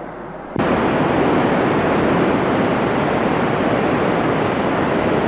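Loud, steady hiss from a two-metre FM radio receiver with no signal coming through, starting abruptly about half a second in after a short quieter moment. It is the open-squelch noise heard between transmissions.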